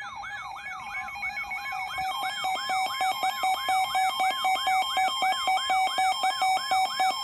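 Electronic siren in a fast yelp: a rising sweep repeated about three to four times a second. A pulsing steady tone joins it about two and a half seconds in, and both cut off suddenly at the end.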